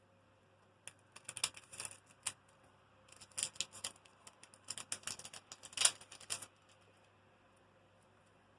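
Foil Pokémon card booster pack wrapper crinkling and being torn open, a run of sharp crackles that stops about six and a half seconds in.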